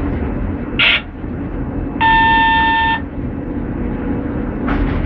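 Cab of a TEP70BS diesel locomotive under way, with a steady low rumble of engine and running gear. About two seconds in, a loud, steady beep-like tone sounds for about one second. Short hissing bursts come about a second in and near the end.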